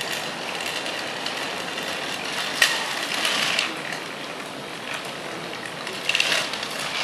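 Small DC gear motors and the chain-and-sprocket drive of a tracked robot cart running as it pivots on the spot, with a sharp click about two and a half seconds in.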